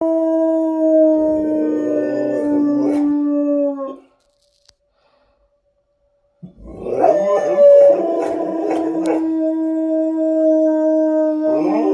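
Tornado warning siren sounding one long, steady tone that sags slightly in pitch, while dogs howl along with it in wavering, pitch-bending howls. The sound breaks off about four seconds in and comes back about two seconds later.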